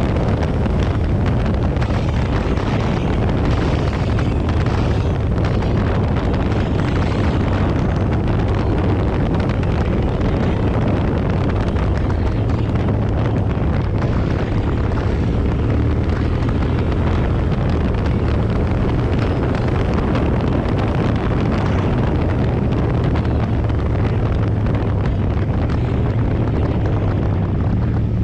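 A vehicle engine running steadily on the move under a strong rush of wind on the microphone.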